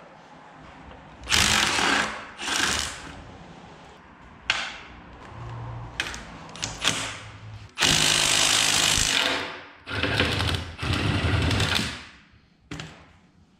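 Cordless impact driver hammering in several bursts as it backs out the bolts holding a manifold to a forklift's top plate, the longest burst a little past the middle, with short clicks of metal between.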